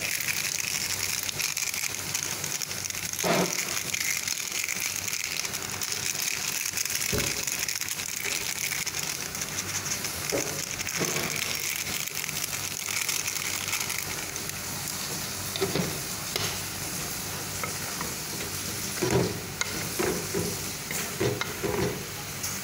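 Ampalaya (bitter melon) and egg sizzling in a stainless steel pan over a gas flame: a steady frying hiss, with a wooden spatula knocking and scraping against the pan now and then, more often near the end.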